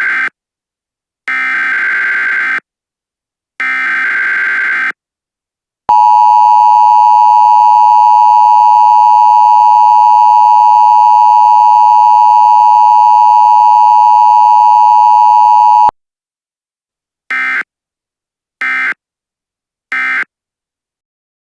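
Emergency Alert System tones: digital header data bursts about a second long (the tail of one, then two more), then a loud steady two-tone attention signal lasting about ten seconds that cuts off sharply, then three short end-of-message data bursts.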